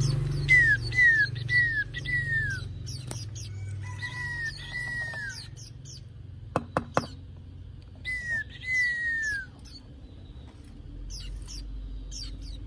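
Caged white-eyes calling: short falling whistled notes in three groups, about four, then three, then two, with thin high chirps scattered between them. A few sharp clicks come just past halfway.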